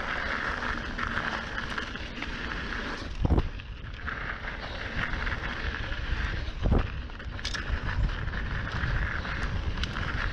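Mountain bike rolling fast over dry gravelly dirt singletrack: a steady rush of tyre noise and wind on the microphone, with two heavy thumps about three and a half seconds apart as the bike hits bumps in the trail.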